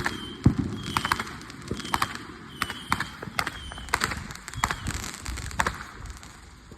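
Fireworks popping: an irregular run of sharp cracks, several a second, thinning out near the end. Short high chirps recur about once a second.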